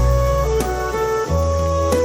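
Background music: a melody of held notes on a flute-like instrument over a sustained bass, changing note about every half second.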